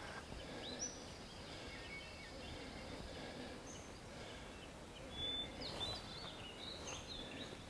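Songbirds of a dawn chorus calling faintly: many short, high chirps and whistles over a soft background hiss, with a faint rustle about five seconds in.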